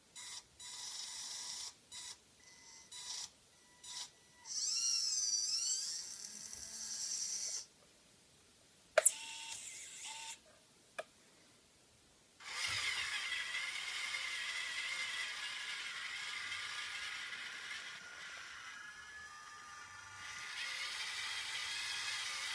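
Electric motors of a Huina 580 RC excavator whining as its arm and clamp are worked: a string of short start-stop bursts, one with a wavering pitch, and a sharp click about nine seconds in. From about halfway the motors run continuously as the clamp lifts a wrapped pallet load.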